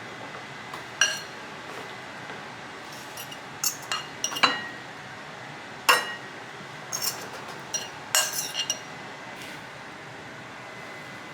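Kitchenware being handled: about a dozen sharp clinks, each ringing briefly, bunched between about one and nine seconds in, over a faint steady hiss.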